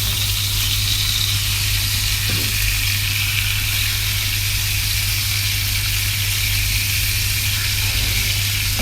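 Wagyu steak searing in hot oil in a frying pan: a steady sizzle, over a steady low hum.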